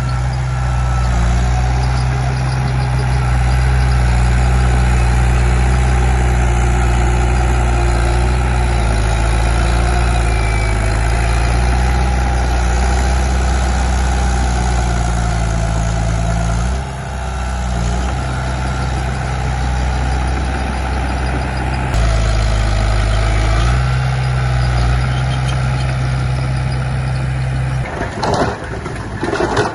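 Komatsu D31P bulldozer's diesel engine running hard, its pitch and load shifting a few times as it pushes soil. A brief burst of clattering near the end.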